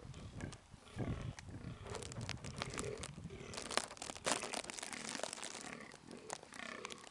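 Fallow buck barking: short, deep calls, repeated several times, typical of a buck in the autumn rut. A crackle of sharp clicks comes around the middle.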